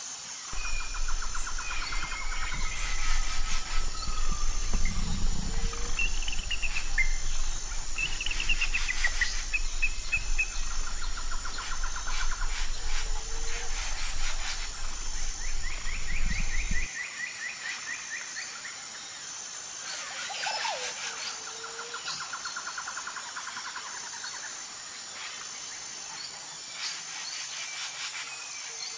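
Outdoor birdsong: several small birds chirping and trilling, with quick rising and falling whistles, over a fast, regular high-pitched pulsing. A low rumble underneath stops suddenly a little past halfway.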